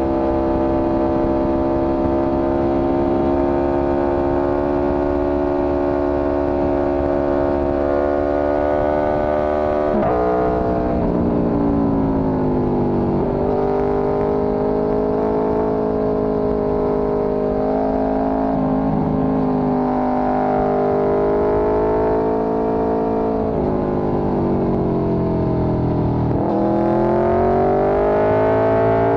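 Motorcycle engine running under way. It holds a steady pitch for about ten seconds, then drops as the bike slows, rises and falls again through the middle, and climbs as it accelerates near the end, with a rush of wind noise underneath.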